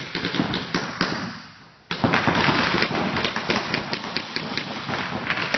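Rapid popping of reball markers firing and the rubber balls striking, many shots overlapping. The shots thin out briefly, then burst into a dense, continuous rattle about two seconds in.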